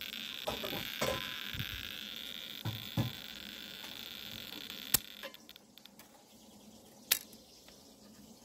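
A Soviet DP-5V radiometer and its detector probe being handled: soft knocks and rubbing, under a steady high hiss that stops about five seconds in. Two sharp single clicks follow, about two seconds apart.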